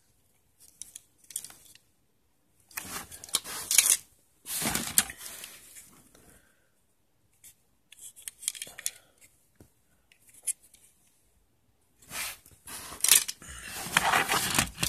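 Plastic bag rustling and crinkling in several bursts as toy cars are handled and pulled from it. The loudest stretch is near the end.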